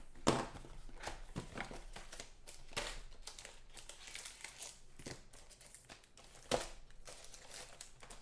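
Cardboard and foil card-pack wrappers crinkling and tearing as a Panini Playbook football card box is opened and its packs pulled out, with scattered handling clicks; the sharpest come just after the start and about six and a half seconds in.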